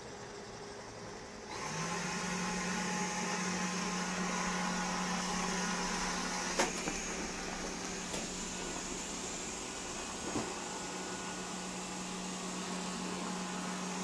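Xiaomi robot vacuum-mop starting up about a second and a half in and running steadily: a low motor hum under an airy whir. A few light knocks come through.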